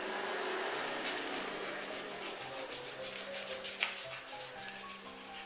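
Baking paper rustling and crinkling as hands press and handle a paper-wrapped sandwich, with a sharper crackle about four seconds in. Soft background music plays underneath.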